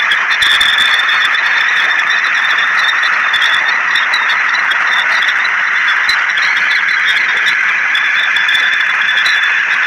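Steady loud hiss of an abrasive water-jet cutting nozzle spraying water mixed with silica sand at very high pressure, over 2000 bar.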